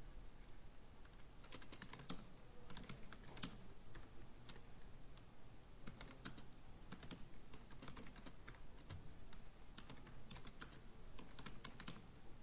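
Typing on a computer keyboard: irregular runs of key clicks with short pauses, starting about a second and a half in.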